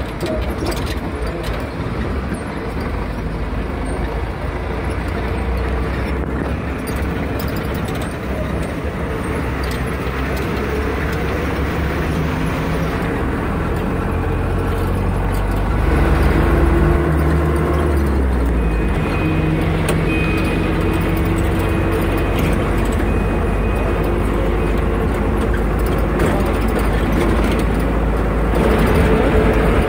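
Engine and road noise heard from inside a moving vehicle in city traffic, a steady rumble that grows a little louder about halfway through as the engine pulls harder.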